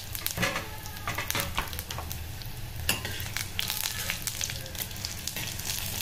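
A tempering of cumin, mustard seeds, curry leaves and green chillies frying in hot oil, with scattered sharp crackles. A steel spoon stirs and scrapes against the stainless steel pan.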